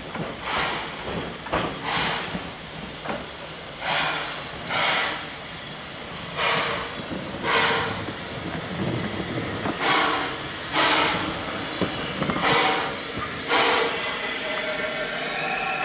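Narrow-gauge steam tank locomotive moving slowly, its exhaust chuffing in short puffs about one a second, often in pairs, over a steady hiss of steam.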